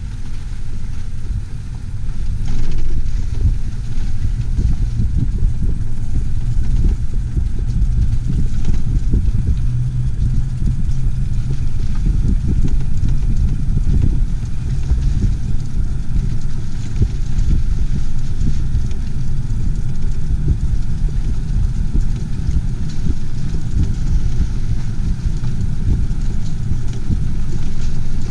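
A vehicle on the move: a steady, low, rough rumble of engine, road and wind noise.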